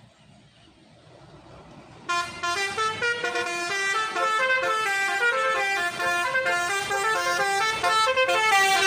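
Indonesian bus telolet horn, a multi-tone musical air horn, playing a quick tune of stepped notes that begins about two seconds in after a quiet start.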